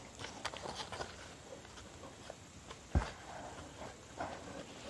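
Soft rustling and ticking of folded paper being handled, with a single knock on the tabletop about three seconds in.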